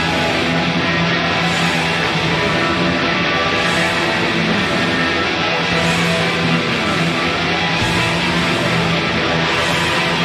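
Rock music with electric guitar, playing continuously at a steady, loud level.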